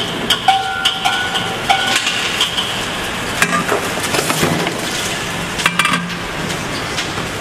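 Metal scoop scraping and clinking through a pile of freshly made caramel popcorn on a perforated stainless-steel tray, with a few short ringing metallic clinks in the first two seconds.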